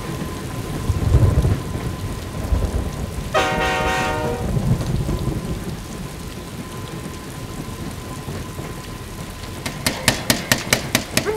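Dramatic intro soundtrack: a deep noisy rumble, loudest about a second in, a held horn-like tone for about a second from about three seconds in, and rapid even ticks, about five a second, starting near the end.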